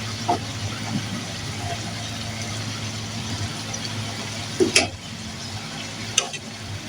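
Cooking sounds: food sizzling in a pan, with a utensil clinking against it a few times, loudest about two-thirds of the way through, over a steady low hum.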